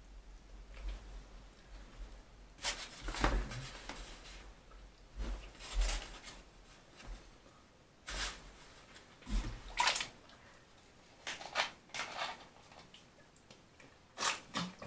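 Eating sounds of a kebab being chewed: short irregular bursts every second or two, with quieter stretches between them.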